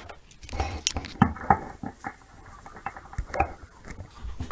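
Hard plastic toy parts, the BeyWarriors top, its launcher and the stadium, handled and set in place: a run of irregular light clicks and knocks, the loudest about a second and a half in.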